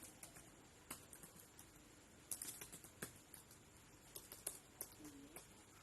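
Computer keyboard being typed on: faint, irregular key clicks, with a quick flurry of keystrokes about two seconds in.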